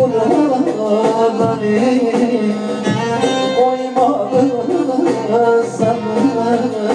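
Live Turkish folk music played through amplification: a man sings a melody into a microphone over instrumental backing.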